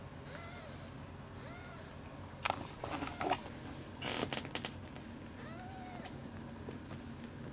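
A newborn kitten, two or three days old, mewing in four short, high-pitched cries. A cluster of sharp clicks and rustles comes about two and a half seconds in and again about four seconds in.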